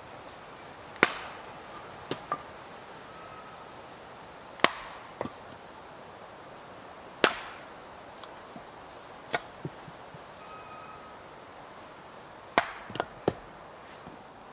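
Axe chopping wood: four heavy strikes a few seconds apart, each followed by one or two lighter knocks.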